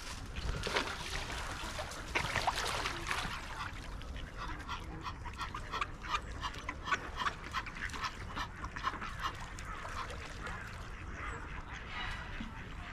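Ducks quacking: a few louder calls in the first three seconds, then a quick run of short quacks in the middle.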